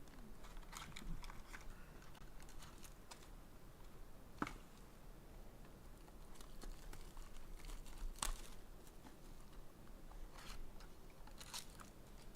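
Trading-card packaging being handled and opened: faint crinkling and tearing of wrapper and box material, with scattered light clicks and two sharper taps, about four and a half and eight seconds in.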